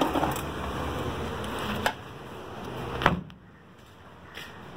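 Knocks and handling noise from a phone camera being carried, over a steady background hiss, with a sharper knock about three seconds in after which the background drops away.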